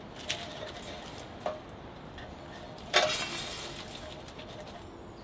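Cast iron Petromax dutch oven and its lid knocking against each other as they are handled over the fire: three metallic clanks with a short ring, the loudest about three seconds in.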